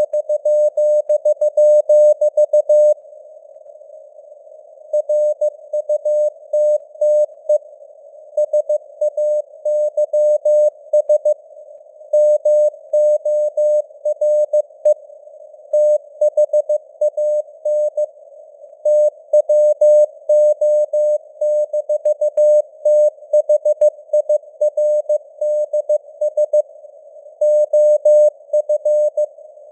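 Morse code at 15 words per minute: a single mid-pitched beep keyed into short and long elements, grouped into letters and words with pauses, over a narrow band of hissing simulated radio noise, the signal fading up and down.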